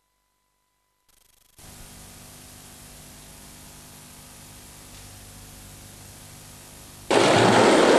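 Steady hiss and low hum of analogue video tape over a blank stretch, after a faint steady tone in the first second. About seven seconds in, a much louder rough rolling noise cuts in suddenly: skateboard wheels on concrete.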